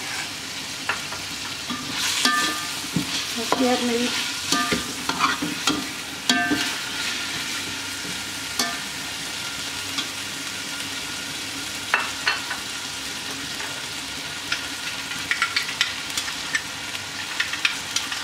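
Chicken pieces frying in oil in an aluminium pot, a steady sizzle. A metal slotted spoon scrapes and knocks against the pot as it stirs, most busily a couple of seconds in and again near the end.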